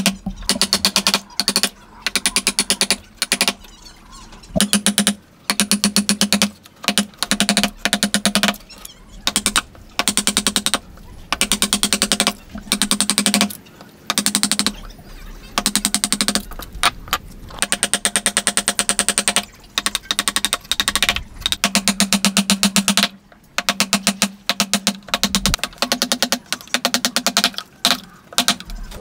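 Wooden mallet striking a steel chisel into wood in runs of rapid taps, each run lasting about a second with short pauses between.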